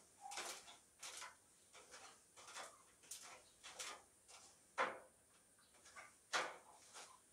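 Faint, irregular knocks and clacks from a metal stepladder as a man climbs it and shifts his weight on its steps. Two louder knocks come a little past the middle and again later on.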